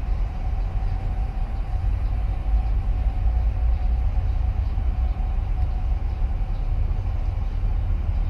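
Steady low rumble with a constant mid-pitched hum from a large container ship's machinery as the 366 m, 13,092 TEU vessel moves slowly past close by.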